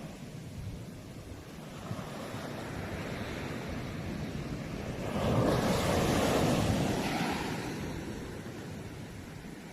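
Sea waves breaking and washing up the shore. One wave breaks louder about halfway through, then the wash fades away.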